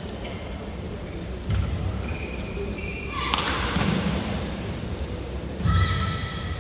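Badminton rally on an indoor court: sharp racket strikes on the shuttlecock, heavy footfalls about one and a half seconds in and again near the end, and short high squeaks of shoes on the court floor.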